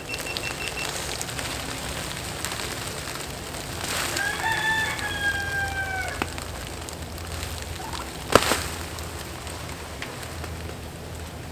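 A rooster crowing once, a single call of about two seconds that starts about four seconds in and falls slightly in pitch. A sharp knock follows a couple of seconds later and is the loudest sound.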